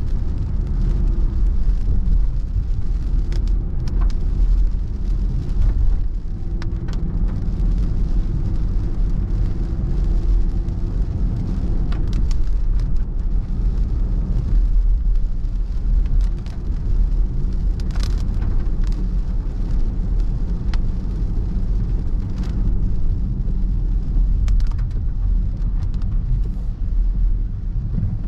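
Inside a car's cabin while driving on a wet road in rain: steady low road and engine rumble with tyre hiss, and scattered sharp taps from time to time.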